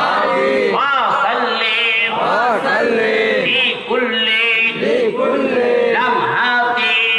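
Men's voices chanting an Islamic devotional recitation together, a melodic chant whose pitch rises and falls in repeated phrases.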